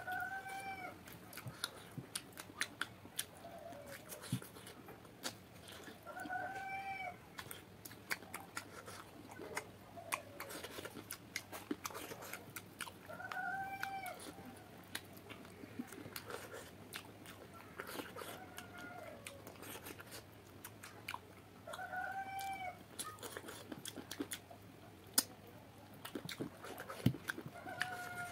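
Close-up eating sounds: wet chewing, biting and lip-smacking clicks as chicken curry is eaten by hand. About every three to seven seconds a domestic animal gives a short, rising-then-falling call, about eight times in all.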